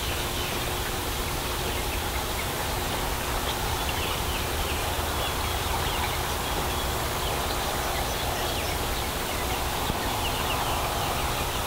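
A flock of young Delaware chickens calling with short, faint peeps and chirps over a steady background hiss and low rumble.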